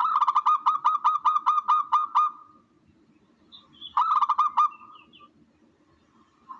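Recorded bird call played as a hunting lure: a fast run of about eleven clipped notes over two seconds, then a shorter run of about five notes a second and a half later. A faint low hum runs underneath.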